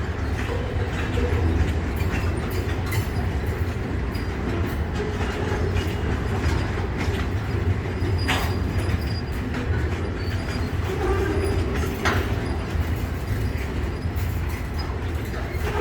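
Freight train of railway tank wagons rolling along the track, a steady low rumble with wheels clicking over rail joints. Two sharp knocks stand out, about 8 and 12 seconds in.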